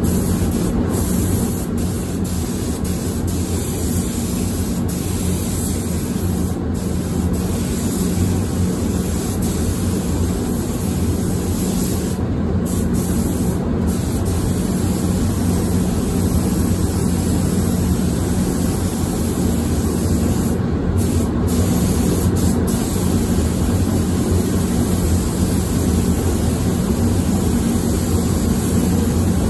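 Paint spray booth's ventilation running: a steady rush of air with a low fan hum that does not change.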